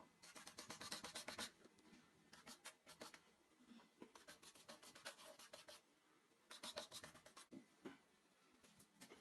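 Faint, rapid scratching strokes on a surface, in several short bursts with pauses between them.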